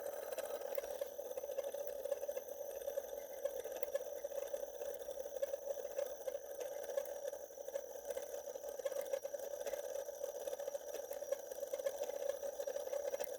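Faint, steady buzz from an activated fire alarm bell that fails to ring: the bell is faulty.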